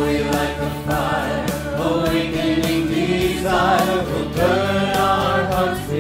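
Mixed choir of men and women singing a contemporary worship hymn in unison, over electric bass accompaniment.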